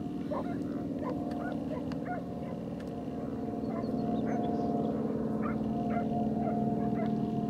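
A steady engine drone, several even tones held without change, growing slightly louder from about halfway through.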